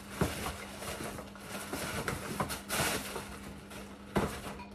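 Tissue paper rustling as it is handled and pulled out of a gift bag, with two sharp clicks or knocks, one just after the start and one near the end.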